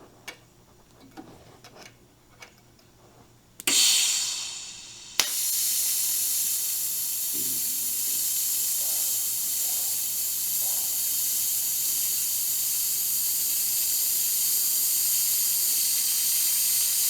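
TIG welding test with a new flex-head torch. A burst of hissing starts after a few quiet seconds, then the arc strikes with a sharp crack about five seconds in. The arc burns with a steady hissing buzz for about twelve seconds and cuts off abruptly near the end.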